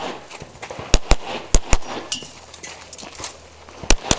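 Pistol shots fired in quick pairs: two about a second in, two more half a second later, then a pause of about two seconds before a last pair near the end.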